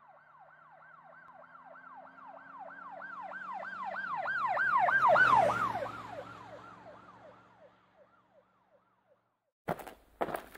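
Police car siren in a fast yelp, about three rises and falls a second, with a low engine hum under it. It grows louder, passes about five seconds in with a drop in pitch, and fades away. Sharp footsteps begin near the end.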